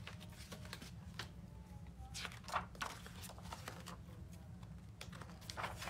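Faint rustles and soft taps of a hardcover picture book being handled and opened, over a steady low room hum.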